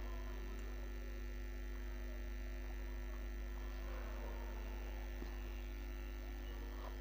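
Steady low electrical hum, unchanging, with a few thin steady tones above it.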